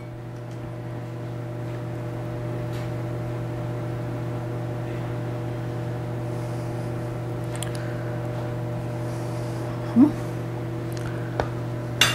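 Microwave oven running with a steady electrical hum, a low buzz with overtones above it. There is a short light knock about ten seconds in and a couple of small clicks near the end.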